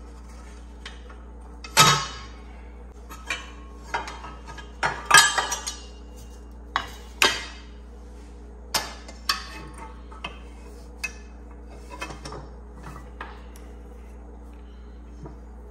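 Irregular metal clanks, clinks and scrapes of a steel brake band and its parts being worked loose by hand inside the steering-brake housing of a John Deere 450 dozer. The loudest knocks come about two seconds in and about five seconds in, over a steady low hum.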